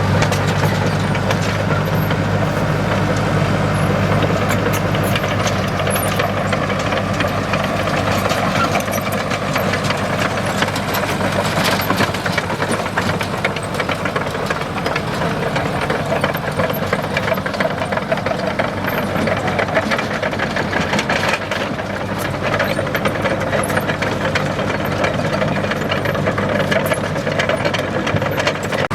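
Komatsu D37EX bulldozer's diesel engine running steadily, with scattered clicks and knocks throughout.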